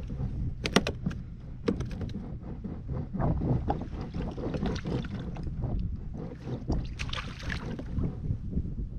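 Kayak on choppy water: water slapping and sloshing against the hull, wind rumbling on the microphone, and a few sharp knocks about one and two seconds in.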